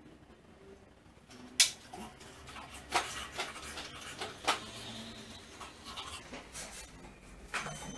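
Staffordshire Bull Terrier panting at an iFetch automatic ball launcher, with a run of sharp clicks and knocks from its claws on the wooden floor and its muzzle and the ball against the launcher's plastic funnel, the loudest about one and a half seconds in. Near the end a steady high whine starts: the launcher's motor.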